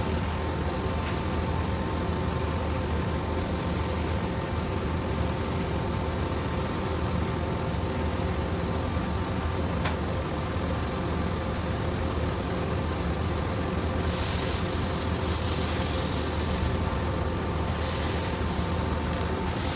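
Steady mechanical hum with a few fixed whining tones from a Mazak horizontal machining center running. One sharp click comes about ten seconds in, and a few soft hissing swells come near the end.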